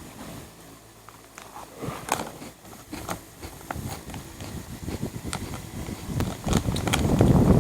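Crunchy Nissin Bread Stix being bitten and chewed: irregular sharp crunches that come thicker and louder from about two-thirds of the way in.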